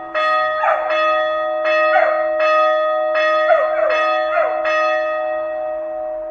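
Church bell struck repeatedly, about every three-quarters of a second, its tone ringing on between strokes. The strokes stop a little past four and a half seconds in and the ring fades away.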